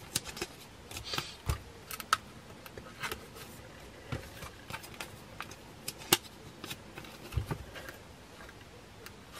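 Photocards in clear plastic sleeves being handled and slid into the pockets of a binder's plastic pages: scattered soft rustles and slides with a few light taps.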